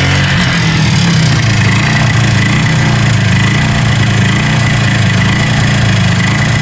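Polaris 300 ATV two-stroke engine running steadily without revving, just after a top-end rebuild with a new oversized piston in a honed cylinder. The engine won't hold a proper low idle.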